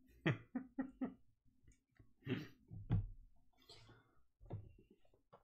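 Knocks and thumps of desk-side handling: a quick run of four knocks, then a few single thumps and some rustling.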